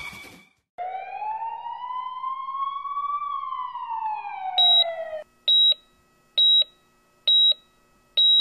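An emergency siren wails in one long sweep, rising in pitch and then falling, and cuts off about five seconds in. Overlapping its end, a hospital patient monitor beeps with a short high beep about once a second.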